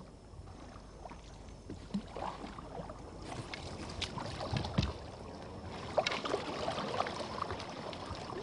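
A small boat being paddled through water: splashing and sloshing with scattered sharp knocks, busier in the second half.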